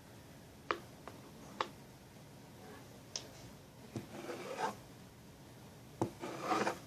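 Homemade fluffy slime of glue, shaving cream and contact solution being kneaded and pulled by hand. There are a few sharp sticky clicks, then two rasping, squelchy stretches near the middle and the end. The slime is still sticky and not coming together.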